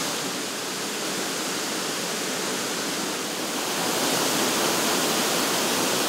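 Waterfall: a steady rush of falling water, a little louder in the second half.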